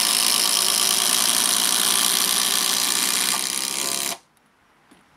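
Cordless impact drivers, among them the HiKOKI WH36DC 36 V triple-hammer, hammering steadily as they drive 100 mm 14-gauge galvanized batten screws into timber. The hammering stops abruptly about four seconds in as the screws seat.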